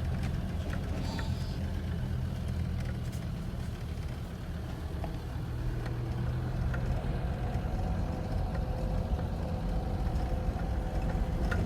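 Tractor engine running steadily at a constant low drone while driving along.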